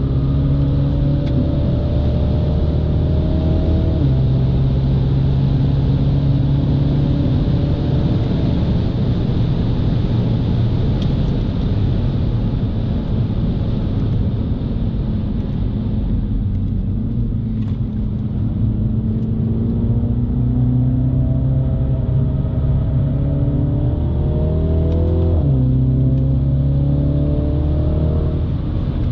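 2018 MINI John Cooper Works' turbocharged four-cylinder engine accelerating on track, heard from inside the cabin, with steady road and wind noise. The revs climb and then step with a gear change about four seconds in and again near the end. The engine eases off in the middle before climbing again.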